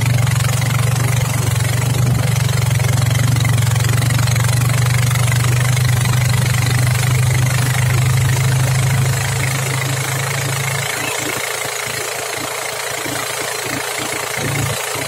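Motorboat engine running steadily while towing, with rushing water and wind noise over it; about eleven seconds in the engine is throttled back and drops away, leaving mostly the water and wind.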